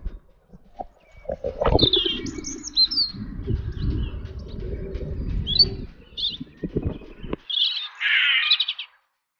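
Small birds chirping in short, high calls over a low rumbling noise. A denser run of rapid chirps comes near the end, then the sound cuts off.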